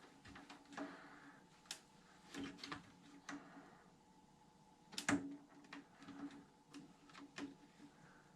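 Light, scattered clicks and taps of small RC truck parts and hand tools being handled during assembly, with one sharper knock about five seconds in.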